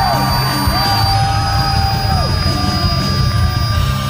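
Handheld power drill whirring in several bursts, its motor speeding up, holding and then winding down each time the trigger is pressed and released, over a steady low hum.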